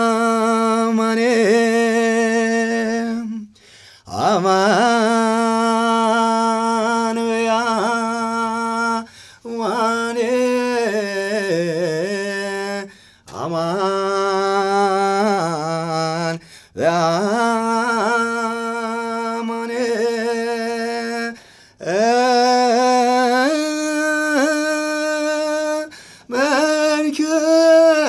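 A man singing Ethiopian Orthodox Yaredawi zema chant unaccompanied. He holds long notes with wavering ornaments, in phrases of a few seconds broken by short breaths.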